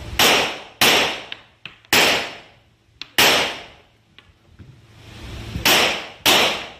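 Six pistol shots from a Rock Island Armory Tac Ultra FS HC, a double-stack 1911-style handgun, each echoing in the indoor range. Four shots come roughly a second apart, then a pause of about two and a half seconds, then a quick pair near the end.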